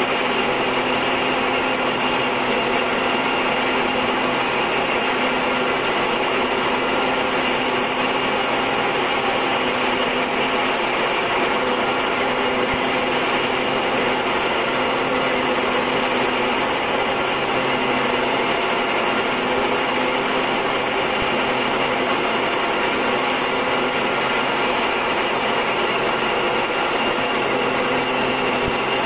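Steady in-flight drone of a Short Tucano's Garrett TPE331 turboprop engine and propeller. Several held hum tones sit over a constant rushing hiss of airflow, with no change in power.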